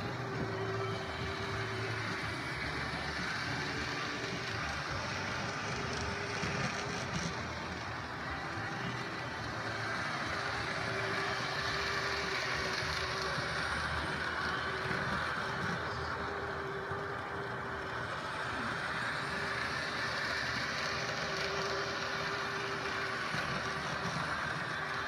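Model train running along the layout track: a steady motor hum over a continuous whirring rumble, a little louder in the middle as the train passes close.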